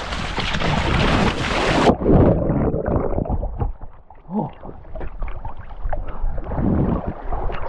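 A person plunging into cold seawater. Loud splashing and rushing water suddenly turn muffled about two seconds in, followed by gurgling and sloshing.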